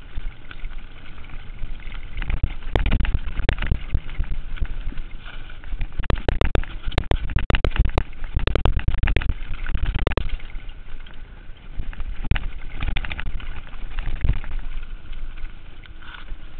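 Mountain bike jolting down a rough, rooty trail: a constant rumble of bumps with bursts of sharp knocks and rattles, thickest in the middle of the stretch. The hard jarring comes from the rider's body taking none of the shock off the chest-mounted camera.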